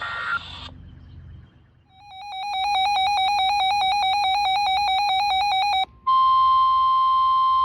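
Weather radio alert alarm: an electronic tone rapidly alternating between two pitches for about four seconds, then a short break and a steady single beep-tone near 1 kHz, the warning alarm tone, for about two seconds. It announces an incoming warning broadcast.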